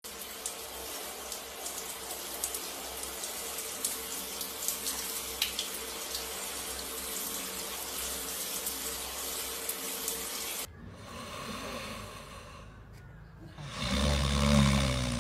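Hand-held shower head spraying water over a dog in a foamy plastic basin: a steady hiss of running water that stops suddenly about eleven seconds in. Near the end, a short, louder low-pitched snore from a sleeping puppy.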